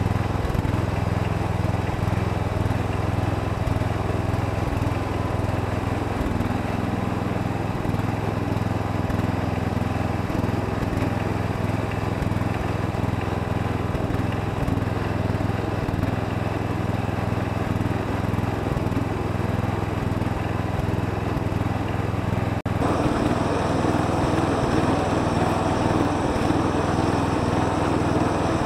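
Castel Garden lawn tractor engine running steadily while the tractor drives. About 23 seconds in the sound changes abruptly at an edit and runs on slightly louder and harsher.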